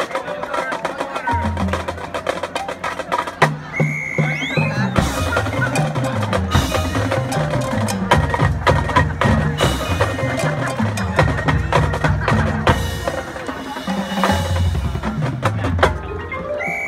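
Marching band playing its field show, led by the drumline's snare and bass drum hits and front-ensemble mallet percussion over a low bass line that steps from note to note. A brief high sustained tone sounds about four seconds in and again at the end.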